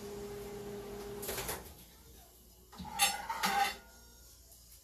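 A microwave oven hums until about a second and a half in, when it stops with a short clunk. About three seconds in, a dish clatters and rings briefly as it is taken out.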